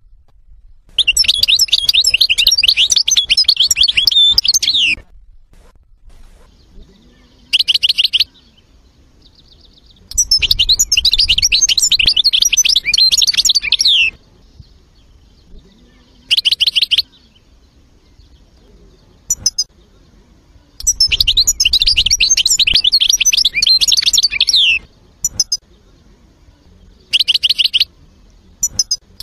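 European goldfinch singing: three long twittering song phrases of about four seconds each, with shorter bursts and a few single notes between them.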